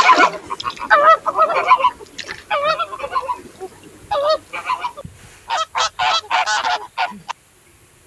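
Birds calling: a rapid series of short, wavering calls, several overlapping, that stop a little after seven seconds in.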